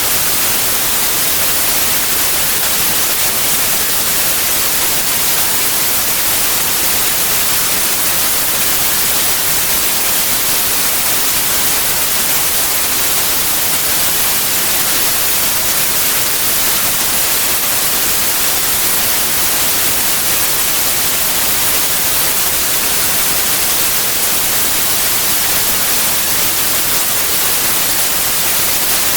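Steady white noise: an even, unbroken hiss, brightest in the high end, with no changes or separate events.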